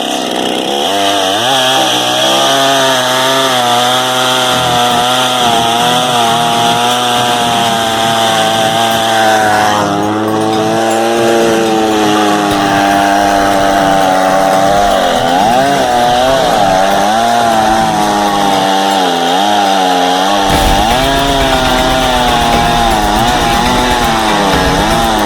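Japanese two-stroke chainsaw running at high revs while ripping through an oak log, its engine pitch wavering up and down as the cut loads and frees it. A low rumble joins the sound about twenty seconds in.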